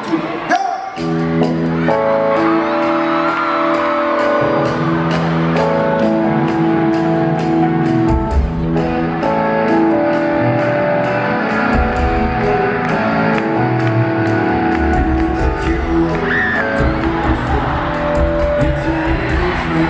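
Live rock band opening a song in an arena, heard through a phone recording. Held electric guitar and keyboard chords come in about a second in, over steady high ticks a little over two a second. A heavy low bass and drum part joins about eight seconds in.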